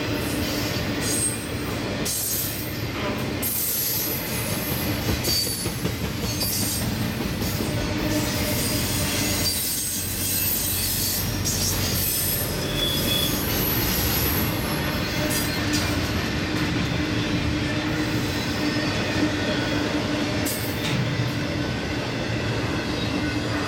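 Norfolk Southern intermodal (piggyback) freight train rolling past, its steel wheels squealing on the rails at times, over a steady rumble with scattered clicks.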